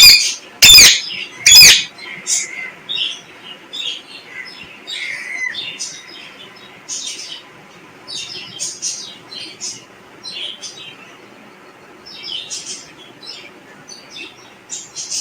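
Pet parrot calling: three loud, harsh calls in the first two seconds, then a long run of quieter, short, high chirps at irregular intervals.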